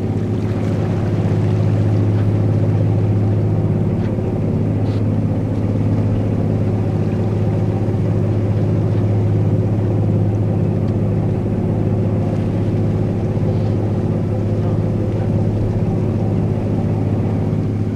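The Garinko-go icebreaker's engines running with a steady low drone, heard from the stern deck along with the churning rush of the ship's wake.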